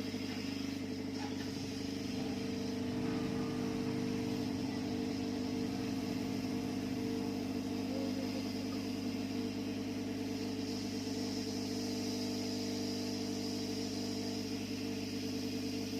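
Hot air rework gun's blower running with a steady hum, heating the phone board to melt the solder paste under a new battery connector.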